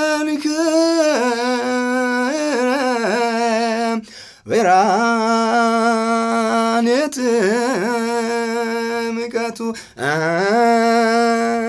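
A man singing solo and unaccompanied in the style of Ethiopian Orthodox Yaredic chant (zema): long held notes with wavering, ornamented runs between them. The singing comes in three phrases, with a brief break for breath about four seconds in and again about ten seconds in.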